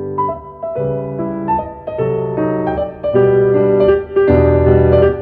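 Background piano music: a melody of single notes over chords, swelling louder about three seconds in.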